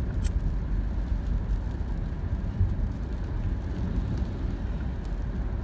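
Steady low rumble of a car driving along a wet road, heard from inside the cabin.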